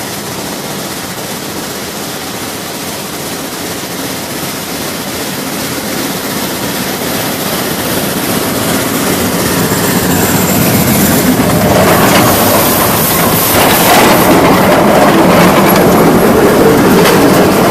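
Steam locomotive approaching along the track and passing directly over the microphone between the rails, growing steadily louder. From about two-thirds of the way in, the wheels clatter loudly over the rails and rail joints as the trucks roll overhead.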